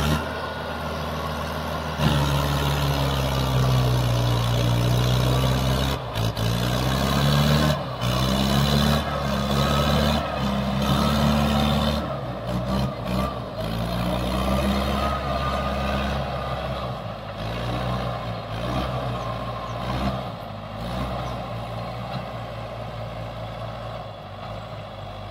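Mahindra Arjun Ultra tractor's diesel engine working under load as it pulls a heavily loaded sugarcane trolley. The revs rise and fall over and over in the first half, then run steadier and a little quieter, with a couple of brief knocks along the way.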